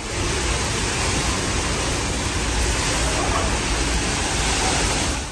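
Water of the Horseshoe Falls pouring past a tunnel opening behind the falls: a steady rush of falling water.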